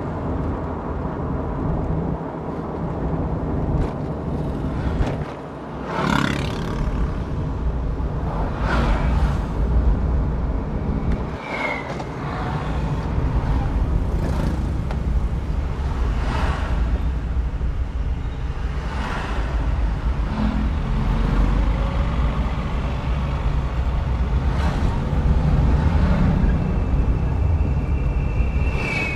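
Road noise heard inside a moving car's cabin: a steady low rumble of engine and tyres, with passing vehicles swishing by every few seconds. A steady high tone comes in near the end.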